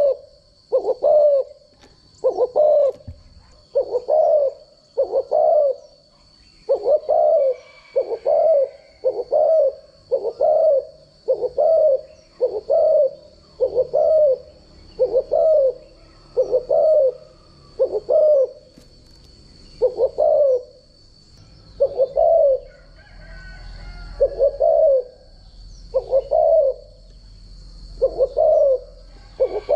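Spotted dove cooing, a long even run of low coos about one a second, spaced slightly wider toward the end.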